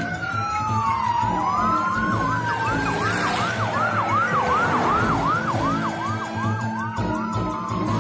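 Several police sirens wailing together: one fast yelping siren rising and falling about three times a second over slower wails that glide up and down, with a low steady drone underneath.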